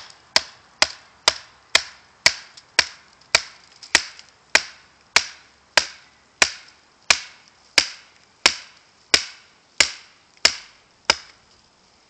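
A wooden baton striking the spine of a Habilis Bushtool, a 5-inch 1055 carbon steel knife, to drive it down through a stick and split it. About twenty easy taps with a short ring after each, roughly two a second at first and slowing a little, stopping about 11 seconds in.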